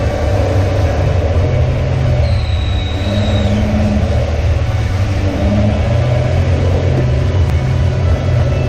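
Off-road 4x4's engine running steadily under load as it drives along a muddy, rutted track.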